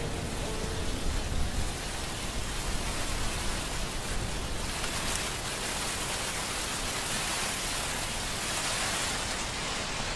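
Steady hiss of rain-like noise with no music or pitched sound in it, growing brighter in the upper range toward the middle.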